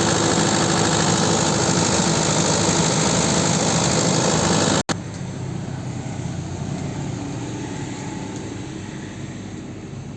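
Diesel generator set engine running steadily, loud and close. About five seconds in the sound cuts out for an instant and the engine carries on much quieter.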